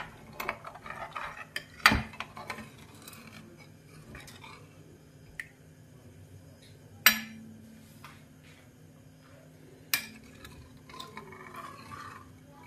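Metal ladle stirring broth in a metal kadai, scraping and clinking against the pan, with three sharp clanks spaced through it. A faint steady hum runs underneath.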